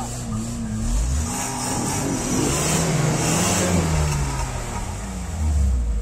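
Lada Niva engine revving up and down under load as the car tries to climb a step on a muddy track, with a rush of noise in the middle; the car is stuck and can't get over the step.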